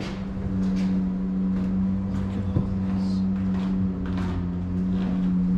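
A steady low-pitched hum, with scattered soft knocks and scuffs over it.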